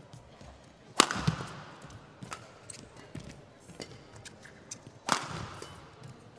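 Badminton racket strokes on a shuttlecock during a rally, echoing in a large hall: two loud, sharp hits about a second in and about five seconds in, with lighter clicks and taps between.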